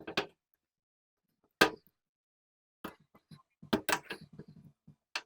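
Clicks and taps of small plastic and metal parts and hand tools as a plastic Nikki carburetor is taken apart on a workbench: one sharp click about a second and a half in, then runs of quicker, lighter clicks from about three seconds to near the end.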